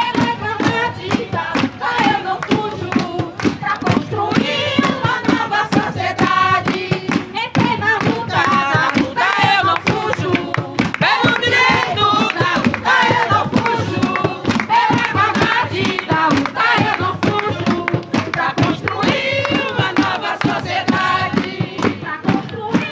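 Crowd singing samba de roda with rapid, continuous hand clapping and percussion.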